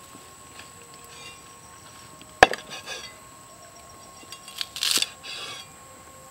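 A heavy cleaver knocks once, sharply, on a thick wooden chopping block about two and a half seconds in, with a short rattle after. Near the end comes a brief rustle of fresh green onions and coriander being handled on the block.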